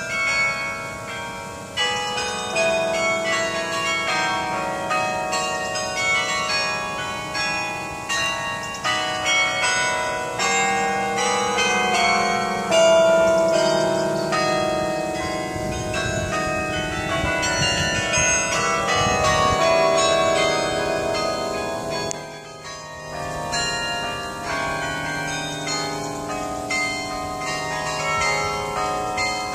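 Carillon bells playing a tune: a quick run of struck bell notes at changing pitches, overlapping as each rings on, with a short lull about 22 seconds in.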